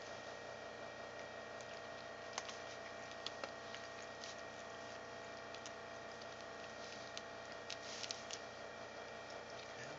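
Cats rubbing against a plastic self-grooming dome lined with bristle brush heads: faint scattered clicks and rustles of bristles and plastic, a few of them a few seconds in and a cluster near the end, over a steady room hum.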